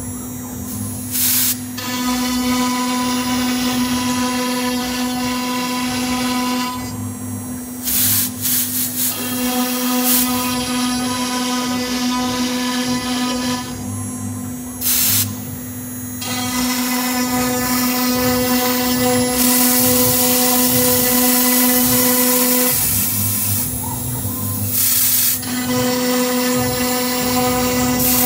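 Leapion 1325 CNC router's spindle running at a steady high whine while its bit engraves letters into MDF, with the rasp of the cut over it. A few short, louder bursts of cutting noise stand out along the way.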